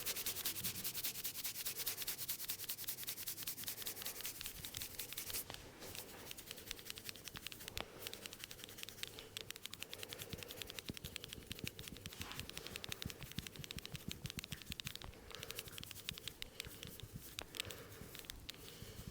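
Hands rubbing and scratching fast and rhythmically through hair and over the scalp during a head massage. The strokes are louder for the first five seconds or so, then carry on more softly.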